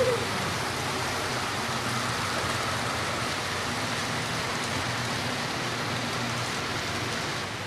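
A steady, even rushing hiss with faint voices murmuring underneath.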